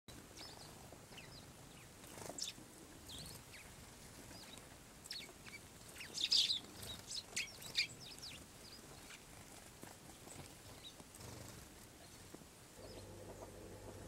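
Tree sparrows chirping: many short, high chirps scattered through, busiest and loudest a little past the middle. A low steady hum comes in near the end.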